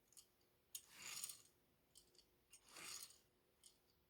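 Die-cast NASCAR Chevy truck toy pushed along a surface, its small wheels rolling in short swishes, two or three times, with a sharp click just before the first.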